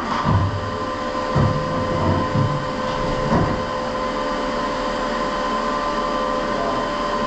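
Steady mechanical running noise with a constant whine, as from a fan or motor-driven machine, with a few low knocks in the first few seconds.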